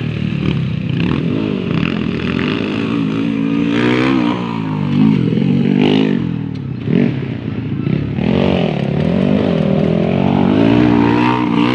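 Honda XRM underbone motorcycle's single-cylinder four-stroke engine revving hard round a dirt motocross track. The engine pitch rises and falls over and over as the throttle is opened and shut, with sharp revs about four, six and seven seconds in and a longer climb near the end.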